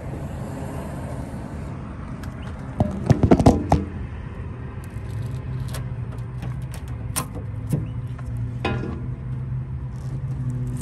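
A steady low motor hum, with a quick cluster of loud clicks and knocks about three seconds in and scattered lighter taps and clicks later, from hands working at the truck's cab door and its chrome emblem.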